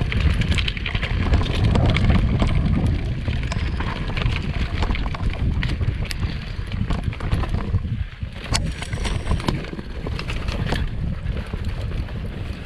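Downhill mountain bike rolling fast down a rough dirt trail, rattling and knocking over bumps, with heavy wind rumble on the microphone.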